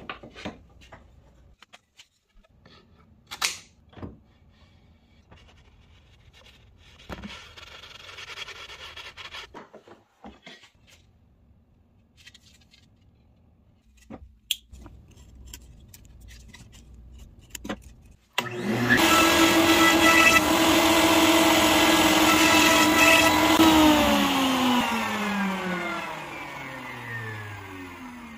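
Light clicks and knocks of hand work, with a short stretch of soft scraping, then a router in a router table switched on about 18 seconds in. Its motor runs at a steady high whine for about five seconds, then is switched off and winds down, the pitch falling as it slows.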